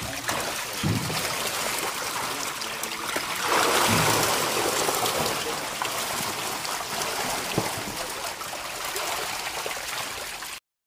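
Water sloshing and trickling in a shallow tank crowded with thrashing catfish, with a few heavier splashes, the loudest stretch about four seconds in. The sound cuts off abruptly just before the end.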